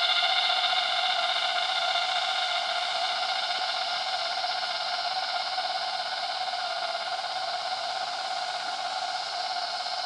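Forest cicadas singing: a steady, whistle-like drone made of several pitches at once, slowly fading away.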